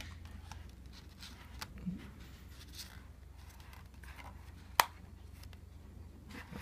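Light handling of a glossy card-and-paper disc booklet: soft scattered rustles and taps of the pages under the fingers, with one sharp click about five seconds in.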